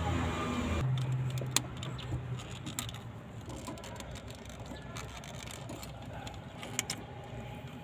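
A few sharp small clicks and light ticks as a thin pin-release tool works into a plastic idle air control valve wiring connector to free its terminals. A low background rumble fades out in the first couple of seconds.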